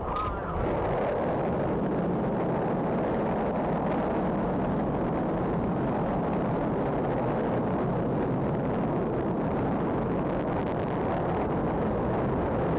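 Soyuz rocket engines at liftoff: a steady, dense rumble of noise that swells about half a second in and holds level.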